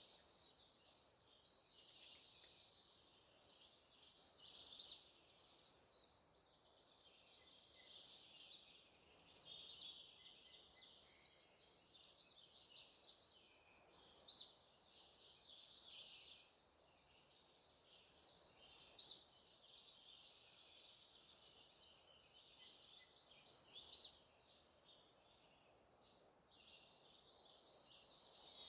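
Songbird song: a loud, high phrase about every five seconds, with quieter twittering between.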